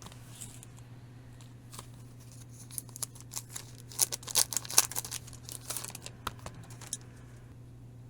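Hands handling packaging: a run of crinkles, crackles and small sharp clicks of plastic and paper, busiest about four to six seconds in.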